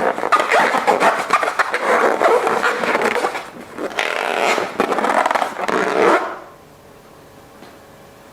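Slime being mixed and squished by hand: a dense run of wet crackling and squelching with many small clicks and some scraping, which stops about six seconds in.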